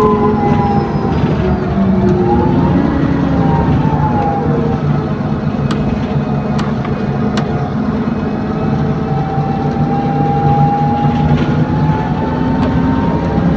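Onboard running sound of an Alexander Dennis Enviro400 Trident double-decker bus with a Voith automatic gearbox: a steady low drone with whining tones that slide down and then back up as the bus slows and pulls away. A few sharp rattles come in the middle.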